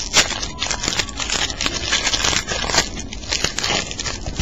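Plastic or wax wrapper of a baseball card pack being torn open and crinkled by hand, a dense run of irregular crackles and crunches.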